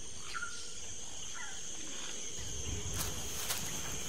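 Tropical rainforest ambience: a steady high-pitched insect drone, with two short falling whistled calls in the first second and a half and a couple of sharp clicks about three seconds in.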